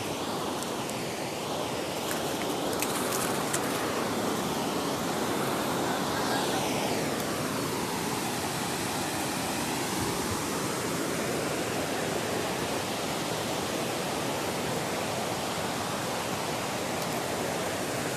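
Waterfall: a steady rush of falling water, its tone sweeping slowly down and back up through the middle.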